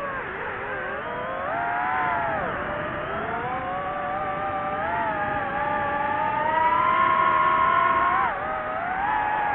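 DJI FPV drone's motors whining, the pitch rising and falling with the throttle. The whine climbs steadily over several seconds, then drops sharply about 8 seconds in.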